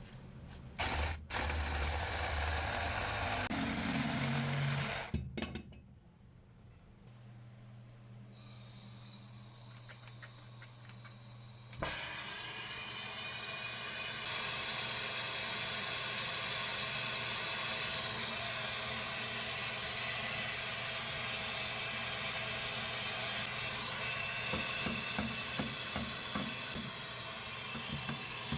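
Low humming and mixed sounds in the first few seconds. Then, about twelve seconds in, a soldering torch flame comes on suddenly and burns with a steady hiss while heating the copper joint.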